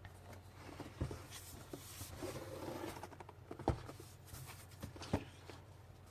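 Cardboard keyboard box being handled and turned over: rustling, with three sharp knocks, the loudest about midway.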